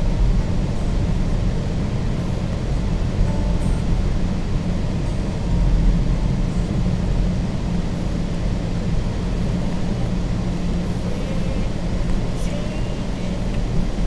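Steady low rumble of a car's engine and tyres, heard inside the cabin while driving on a snow-covered road.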